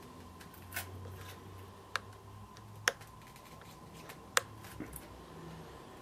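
Small sharp clicks and ticks from hands handling a pinned beetle and the steel pins around it on a polystyrene board, with three louder clicks spread through the middle, over a faint steady hum.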